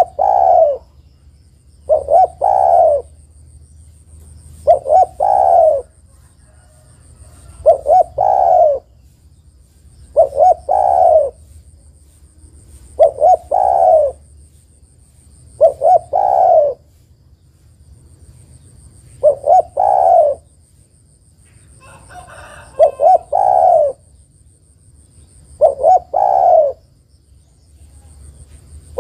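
Spotted dove (tekukur) cooing, a female's call to a male: the same three-note coo, two short notes and a longer one, repeated about every three seconds, eleven times over.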